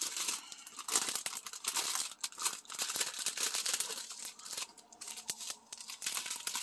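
Clear plastic packaging crinkling and rustling in irregular bursts as a strip of small bags of diamond-painting drills is handled and unwrapped.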